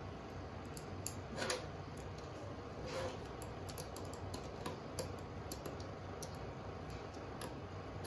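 Small metal screws and a small screwdriver clicking and scraping as screws are picked up and driven into a hard drive through its plastic NAS drive tray. Scattered light clicks, with a louder scrape about a second and a half in.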